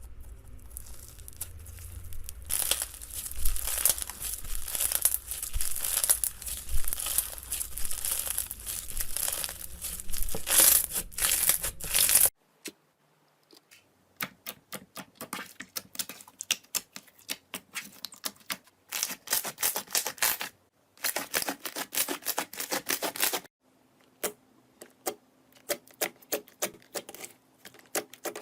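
Slime being worked by hand: dense, continuous crackling and popping for about the first twelve seconds. After a sudden cut come sparser runs of sharp little clicks and pops, with two busier stretches of crackling in the latter half.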